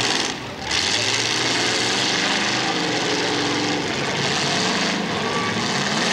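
Several racing engines running hard during a feature race, their pitches rising and falling as the cars pass. The sound dips briefly just under a second in.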